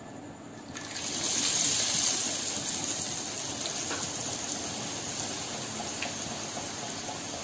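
Drops of gram flour batter falling through a perforated boondi ladle into hot groundnut oil and frying with a steady sizzle. The sizzle swells about a second in, then eases a little and holds.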